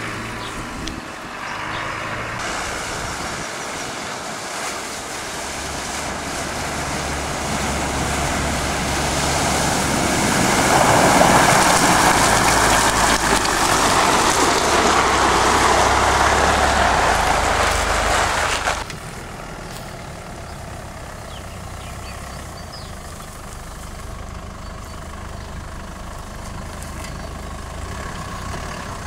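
Land Rover 4x4 engines running as the vehicles work through an off-road river crossing. From about eight seconds in, a loud rushing noise builds over the engine and stops abruptly a little past halfway. After that the engine carries on more quietly as a low, steady drone.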